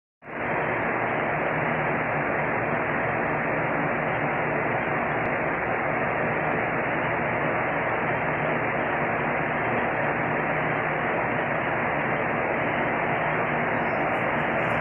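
A steady, unchanging hiss like static, with a faint hum beneath it.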